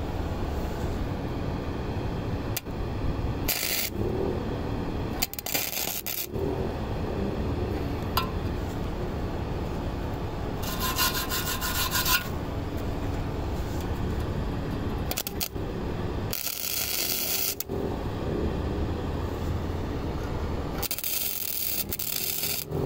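Flux-core wire-feed welder arc crackling as exhaust pipe is tacked and welded to a muffler, with several louder stretches of hiss lasting about a second each.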